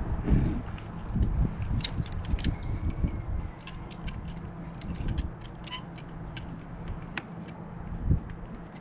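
Scattered small clicks and ticks of a hose's metal fitting being handled and screwed onto its connection, over low wind rumble on the microphone.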